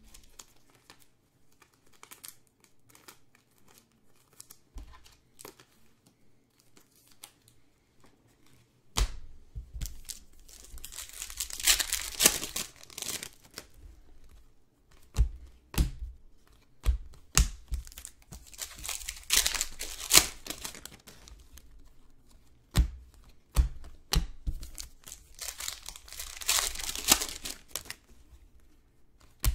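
Prizm basketball card pack wrappers being torn open and crinkled, three times about eight seconds apart. Light clicks and taps of cards being handled come in between, and the first several seconds hold only a few soft clicks.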